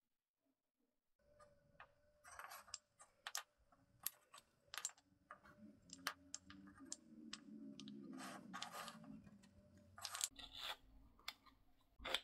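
Faint clicks and knocks of pine tripod legs and metal hardware being handled and laid on a cutting mat, with a few brief rubbing sounds as the pieces slide against each other.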